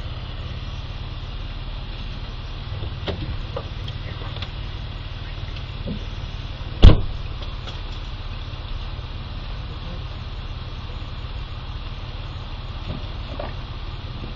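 A car idling with a steady low hum, with a few small clicks and knocks and one sharp loud bang about seven seconds in.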